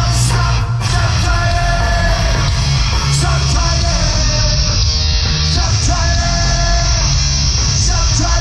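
Punk rock band playing live at full volume, with electric guitars and shouted lead vocals over the band, heard from within the audience.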